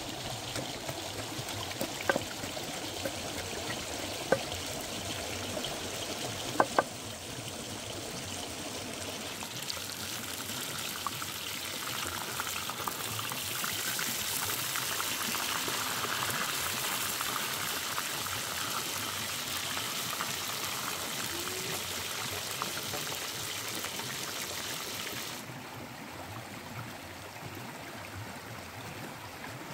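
Steady flowing stream with a few sharp clicks in the first seconds. From about ten seconds in, fish frying in hot oil in a wok adds a dense sizzle and crackle, which cuts off suddenly near the end, leaving the stream.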